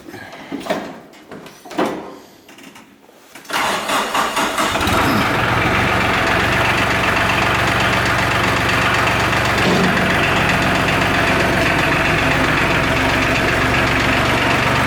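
A couple of knocks, then about three and a half seconds in the New Holland TC33DA tractor's diesel engine starts with a brief uneven crank and settles into a steady idle.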